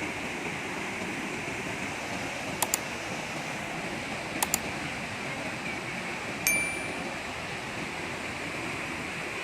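Steady rush of flowing floodwater. Over it come two quick pairs of sharp clicks, and about six and a half seconds in a single sharp click with a brief ringing ding.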